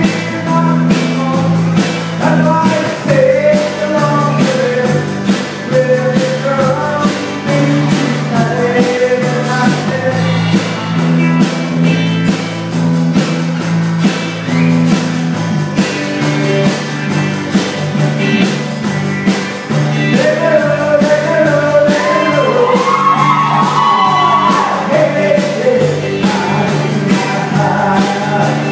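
Live band of drums, electric guitars and acoustic guitar playing an upbeat rock-and-roll song with a singer, amplified through the PA. About two-thirds of the way through, a high melodic line with bending notes comes to the fore.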